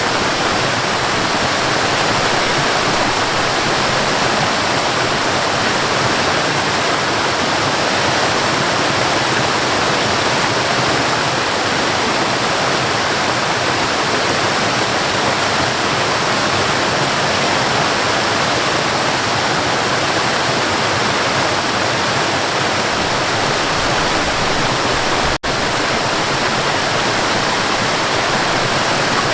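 Waterfall: a steady, even rush of falling water, briefly cut out for a fraction of a second near the end.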